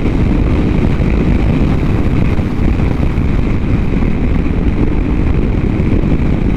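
Ducati Hyperstrada's L-twin engine running while the bike is ridden along a country road, mixed with steady wind rush on the microphone.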